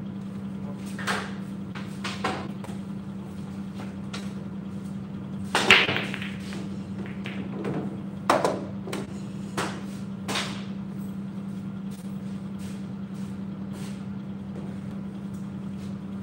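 Pool balls at a 9-ball break. One loud crack as the cue ball smashes into the rack about five and a half seconds in, then a few sharp clacks over the next five seconds as the balls hit each other and the cushions. A steady low hum runs underneath.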